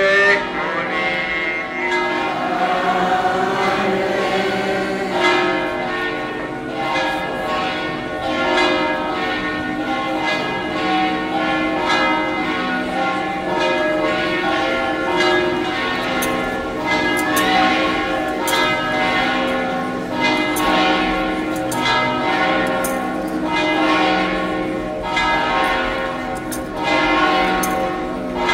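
Church bells pealing, with many strokes overlapping into a continuous ringing. The bells are rung during the benediction with the Blessed Sacrament.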